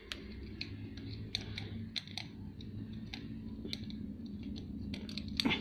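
Irregular small metallic clicks and ticks from hands handling the parts of an old Singer sewing machine as a screw near the handwheel is worked loose, over a faint steady low hum.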